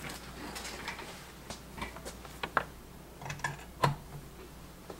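Scattered short clicks and knocks of a keyboard's USB cable being handled and plugged into a computer, the loudest about four seconds in.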